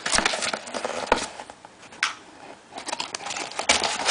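Cardboard box being pried open by hand: irregular clicks, scrapes and crackle of the flaps and packaging, with a sharper scrape about two seconds in.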